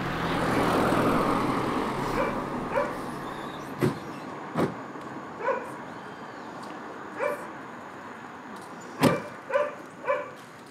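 A vehicle passes as a broad swell of noise in the first few seconds, then a dog barks in about half a dozen short barks, with a few sharp knocks in between, the loudest near the end.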